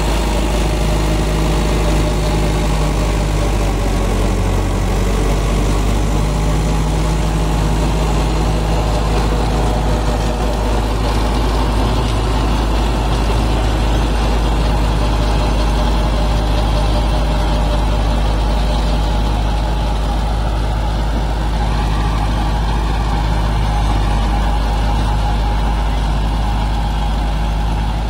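Tractor's diesel engine running steadily under load as it pulls and drives a super seeder working the soil.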